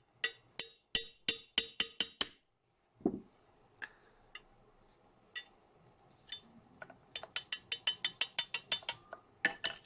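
Small hammer tapping a pin punch to drive out the rear-sight pivot pin of a small Martini rifle, with sharp metallic taps. There is a run of taps at about three a second, a single duller knock, a pause, then a quicker run at about six a second near the end.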